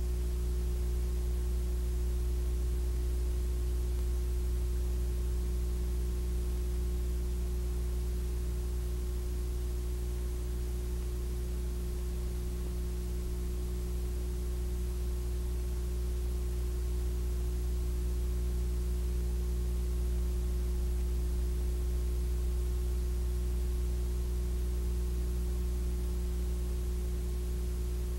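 Steady electrical hum with an even hiss underneath, unchanging throughout: the empty audio track of a silent Super 8 film copied to VHS, with no recorded sound from the scene.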